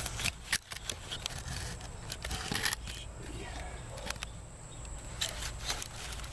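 Scattered light scrapes and clicks of hand work on a bare cast-iron Oldsmobile 394 engine block, over a steady low hum.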